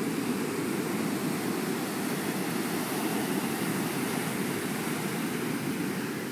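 Ocean surf: a steady rush of waves on the beach, easing slightly near the end.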